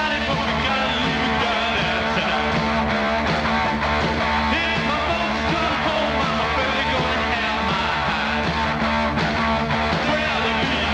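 Rock music playing at a steady, loud level throughout.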